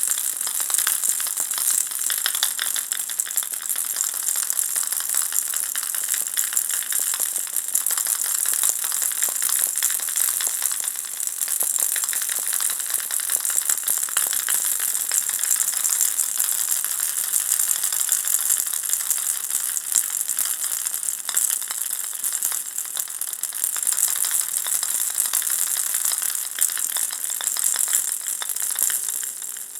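Ball-shaped baby rattle shaken without pause: a dense, high, shimmering rattle made of many fine clicks.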